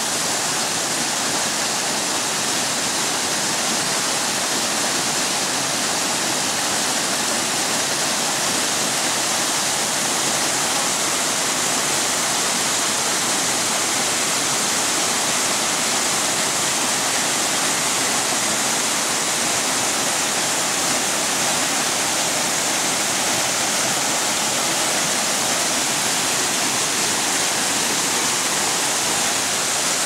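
Small forest waterfall: many thin streams of water falling over a mossy rock ledge and splashing onto the rocks below, a steady, even rush with a bright hiss.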